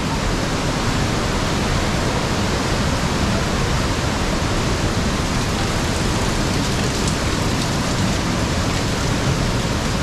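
Waterfall running: a steady, unbroken rush of falling water.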